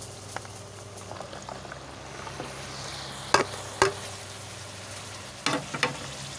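Cut okra being tipped into a pot of simmering onion-tomato masala, which bubbles and sizzles under a steady low hum. Two sharp knocks come just past the middle and a few more near the end, as utensils strike the pot.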